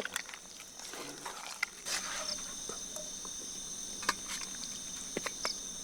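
Night insects chirring steadily in several continuous high-pitched tones, with a few sharp clicks and taps scattered through.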